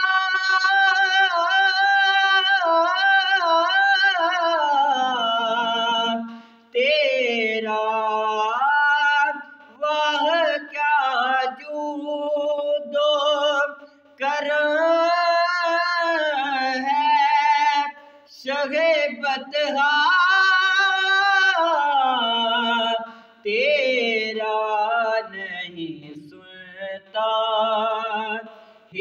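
A young man's solo voice reciting an Urdu naat unaccompanied, in long held, wavering notes with ornamented glides. The phrases are broken by short breaths every few seconds.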